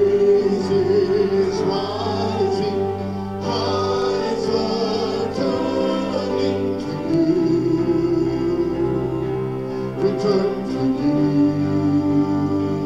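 Church worship music: voices singing a hymn or worship song over sustained instrumental chords.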